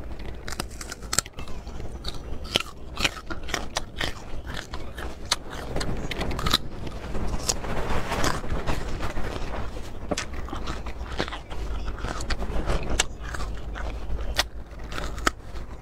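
Close-up crunchy biting and chewing of small, hard, unripe green fruit, with many crisp crackles as it breaks between the teeth.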